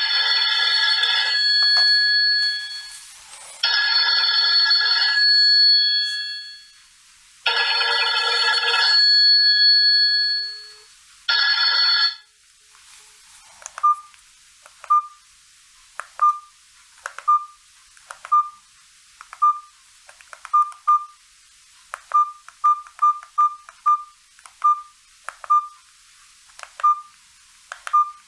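Maxvi B10 push-button phone's incoming-call ringtone: a short electronic melody repeated three times, cut off partway through a fourth about 12 seconds in. After that come short clicks, each with a brief beep, about one a second and bunched closer together near the end: keypad beeps as the phone's buttons are pressed.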